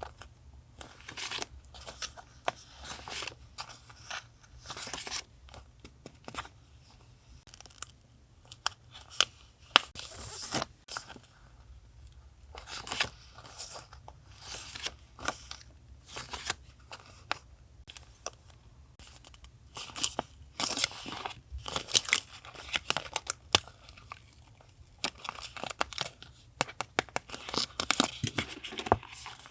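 Paper being handled, torn and crinkled for journal collage: irregular rustling, tearing and crackling strokes, close to the microphone, over a faint steady low hum.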